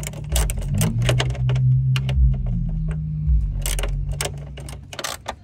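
Ratchet wrench clicking in quick irregular runs as it backs out a radiator cooling fan mounting bolt. A loud low hum runs underneath and fades near the end.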